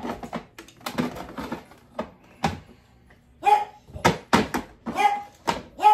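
Dog barking: a series of short, sharp barks, sparse at first and coming in quick succession from about halfway through. These are demand barks; the dog wants to be let upstairs.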